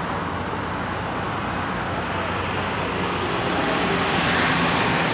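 A small boat's outboard motor running steadily under way, with wind and water rushing past; the rush grows a little louder about four seconds in.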